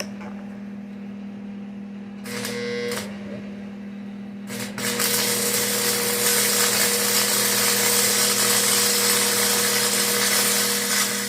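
Arc welder laying a tack weld on a steel frame crossmember: a short arc about two seconds in, a brief strike, then a steady arc for about seven seconds that stops near the end. A constant low hum runs underneath.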